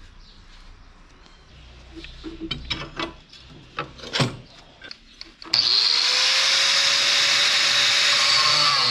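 A few light knocks and clicks, then about five and a half seconds in an angle grinder switches on: its whine rises as the motor spins up, then it runs steadily at full speed with no load.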